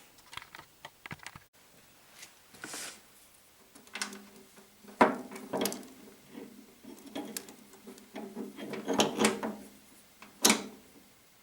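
Irregular clicks, knocks and clatter of metal parts and tools being handled, with the loudest knocks about five seconds in and near the end.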